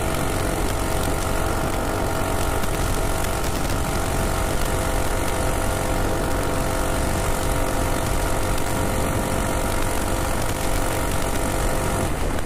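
Minibike's Predator Ghost single-cylinder four-stroke engine running at a steady high throttle at about 45 mph, under heavy wind rush. Near the end the steady engine note drops out as the throttle is let off and the bike slows.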